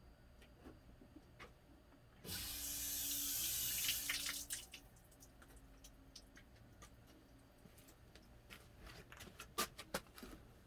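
Liquid running or pouring for about two seconds, starting suddenly about two seconds in, as the resin print is rinsed. It is followed by scattered light clicks and knocks from the part being handled.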